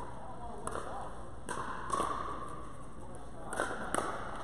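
Pickleball play: a few sharp hollow knocks of a plastic ball off paddles and the court, spaced irregularly.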